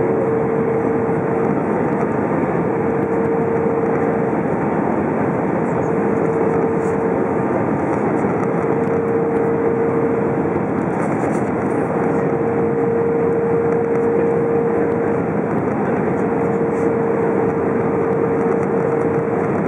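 Airbus A320 cabin noise during the descent on approach with flaps extended: a steady rush of airflow and engine noise, with a constant mid-pitched hum running through it.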